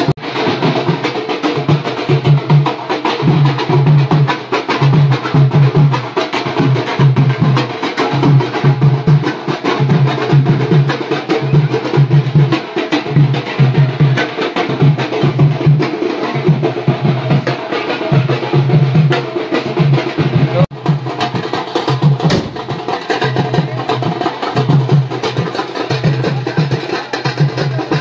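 Loud rhythmic music with a steady, heavy drumbeat of about two beats a second and busy percussion over it. It drops out briefly about two-thirds of the way through.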